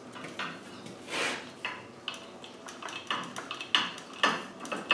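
A hand grease gun being handled and fitted onto the grease fitting of a crawler dozer's track adjuster: a run of sharp metal clinks and clanks, coming faster and louder in the second half.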